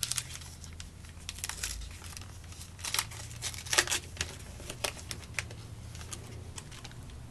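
Baseball card pack wrappers crinkling and tearing as packs are opened and the cards handled, in short irregular crackles, the loudest about four seconds in.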